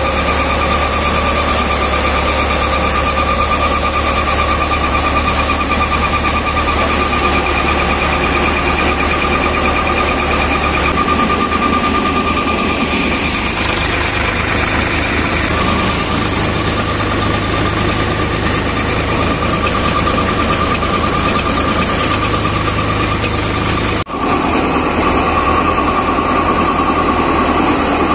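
ShaktiFarm multi-fan paddy thresher running steadily under load, driven by a Sonalika DI 42 RX tractor. The machine gives a constant high-pitched tone over the low run of the tractor's engine, with a brief drop-out near the end.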